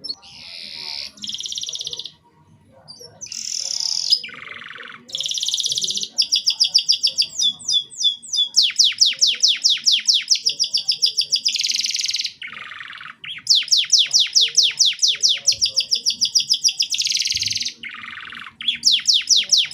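Domestic canary singing a long, continuous, high-pitched song. It is built of phrases of rapidly repeated notes (trills, about nine notes a second), changing to a new phrase every second or few, with short lower buzzy notes in between.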